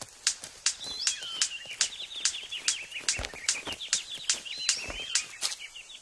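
Male superb bird of paradise's courtship display: sharp, regular clicks about two or three a second. From about a second in, a fast series of high chirping notes runs alongside.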